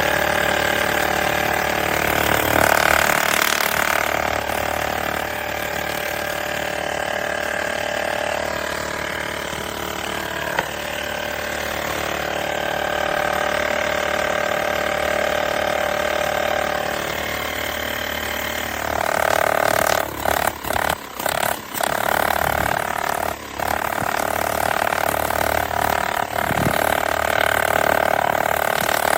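Blestan cordless tire inflator's small air compressor running steadily after switching on, with its pitch wavering and a few brief breaks in the sound about two-thirds of the way through.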